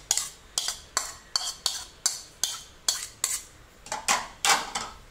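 Steel spoon knocking and scraping against the bowls as chopped onion is scraped out into minced chicken: a quick run of short clinks, about two or three a second, loudest near the end.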